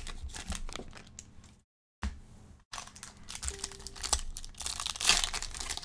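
Plastic and foil trading-card pack wrappers crinkling and tearing as packs are opened by hand, with irregular crackles. The sound cuts out completely for a moment about a second and a half in.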